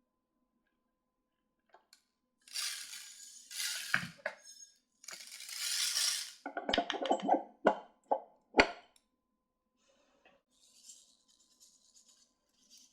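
Small hard objects clinking and knocking on a work surface, a quick run of clicks and one sharper knock, after three short hissing bursts.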